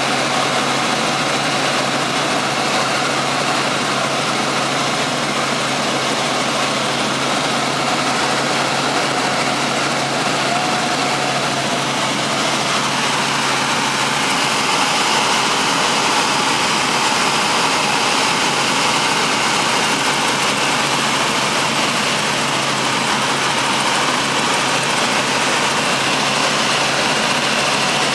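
Helicopter engine and rotors running steadily, a loud constant noise with a low steady hum underneath.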